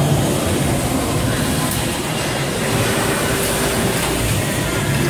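Steady mechanical rumble and hiss of industrial shop noise.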